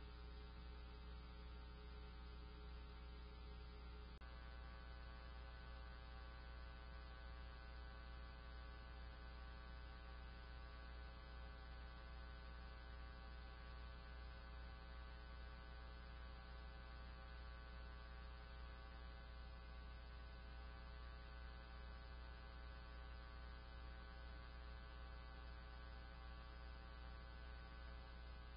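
Faint, steady electrical hum with a set of steady higher tones above it, and no other sound.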